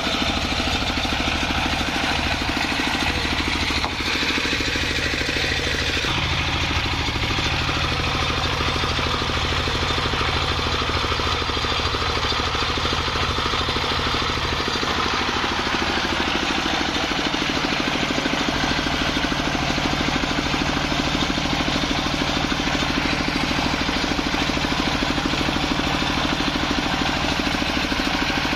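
Stationary single-cylinder diesel engine running steadily, driving a homemade circular sawmill's spinning blade.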